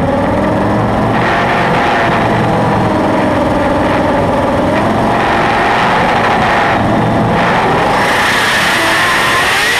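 Mazda 20B three-rotor rotary engine of a drag car, heard from inside the cabin, running while the car stands still, its pitch slowly rising and falling as the throttle is worked. About eight seconds in, a broad hiss joins it.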